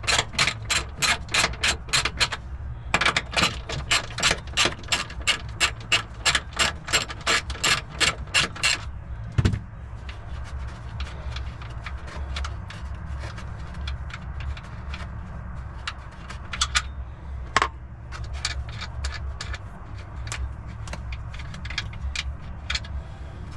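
A 14 mm socket ratchet clicking rapidly, about four clicks a second, as it is swung back and forth to loosen the nuts on the rear strut tower. The clicking stops about nine seconds in and comes back more faintly and unevenly near the end.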